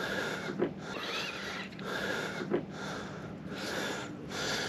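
A person breathing hard close to the microphone, with noisy breaths coming about once a second, over a faint steady hum.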